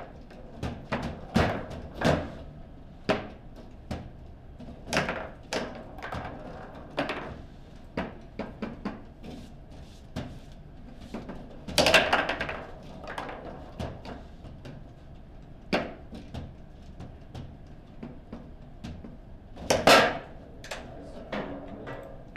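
Foosball rally: irregular sharp clacks and knocks as the hard ball is struck by the rod-mounted figures and the rods bang against the table's bumpers, with the two loudest bangs about halfway through and near the end.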